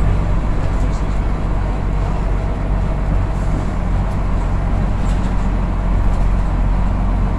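A 1977 Bristol VR/ECW double-decker bus on the move, its engine giving a steady low drone heard from inside the lower-deck saloon.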